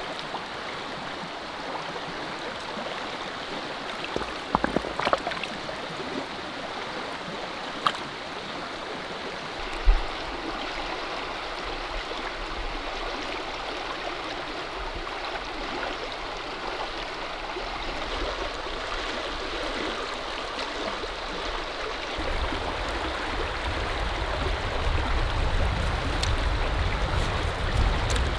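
Shallow stream running over rocks, a steady rush of water, with a few short knocks about four to ten seconds in. A low rumble builds over the last few seconds.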